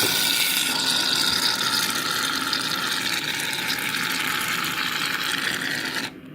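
Aerosol can of shaving cream spraying out foam in one long, steady hiss that starts suddenly and cuts off about six seconds in.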